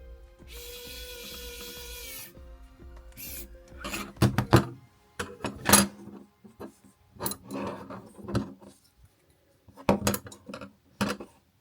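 Hand work on small kit parts: a steady high grinding hiss for about two seconds near the start, then irregular rasping, scraping strokes like a file working a part, over soft background music.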